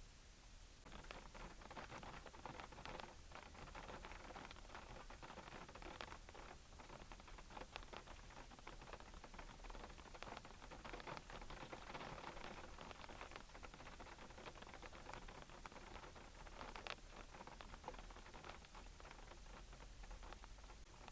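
Faint, irregular pattering of small ticks, starting about a second in: light rain striking the car's windshield and roof.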